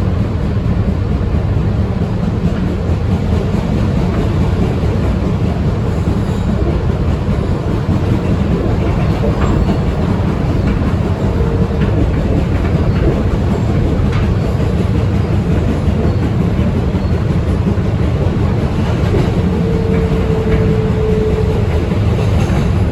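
Inside an R160B subway car running between stations: a steady, loud rumble of steel wheels on the rails, with a faint thin high tone drawn out twice, late in the run.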